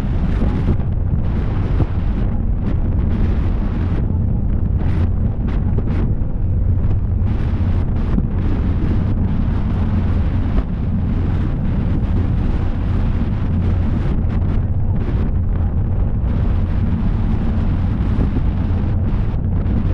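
Wind buffeting the microphone over the steady low rumble of a water taxi running at speed, with its engines and wake.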